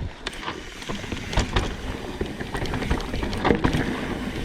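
Mountain bike rolling over a rooty dirt trail: a steady low rumble of tyres on the ground, with irregular knocks and rattles as the bike goes over roots.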